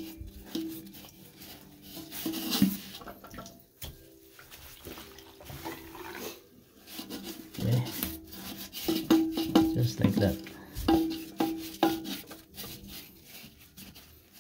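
Sponge rubbing and squeezing inside a porcelain toilet tank, soaking up the last of the water, with irregular knocks and clinks against the tank.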